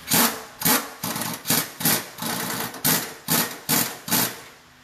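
Pneumatic impact wrench hammering in about nine short trigger bursts, roughly two a second, running down and tightening the nut on a front sway-bar end link.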